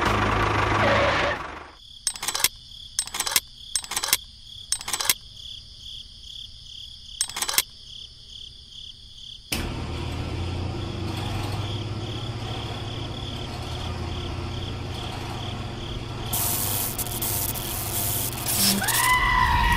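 A small electric toy-tractor motor runs steadily and stops about a second and a half in. A few light clicks of small plastic parts being handled follow over a steady insect-like chirring, then a low steady hum.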